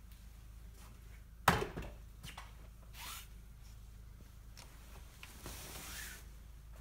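Quiet room tone with a low hum, broken by one sharp knock about a second and a half in, a few fainter clicks, and a soft rustle near the end.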